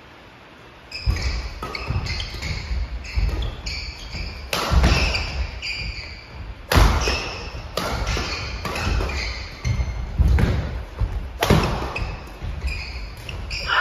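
Badminton doubles rally on a wooden gym floor, starting about a second in: sharp cracks of rackets striking the shuttlecock, the loudest four spread through the rally, mixed with thudding footsteps and short squeaks of shoes on the court.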